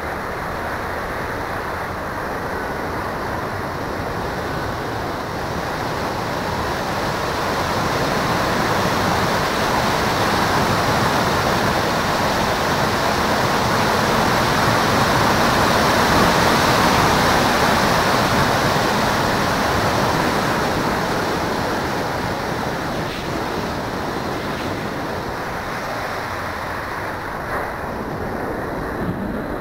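Wind rushing over a keychain camera mounted on an RC plane in flight, a steady roar of airflow. It swells louder in the middle as the plane tilts down toward the ground, then eases off again.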